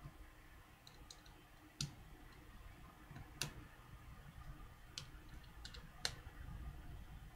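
Light, scattered clicks of a small Phillips screwdriver working against the iPhone 3G's tiny screws as they are tightened, with four sharper clicks spread through.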